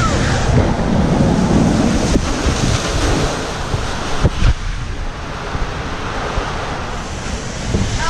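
Water rushing and wind buffeting the microphone as a raft slides down a water coaster's enclosed tube, with a couple of low thumps about four seconds in.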